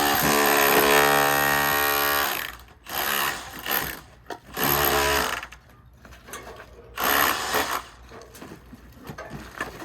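Handheld power tool chipping old stucco off a rock wall. It runs steadily for about two and a half seconds, then in several shorter bursts.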